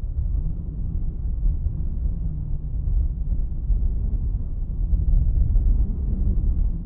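Deep, steady rumble of an Airbus A320neo's jet engines heard at a distance, swelling slightly about five seconds in.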